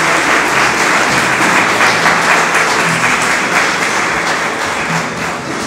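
Audience applauding steadily, a dense patter of many hands clapping that eases a little near the end.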